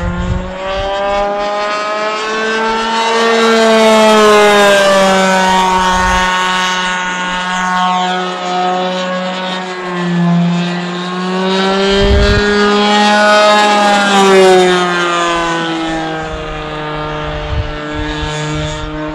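Radio-controlled model airplane's motor droning overhead, its pitch slowly rising and falling as it flies and turns.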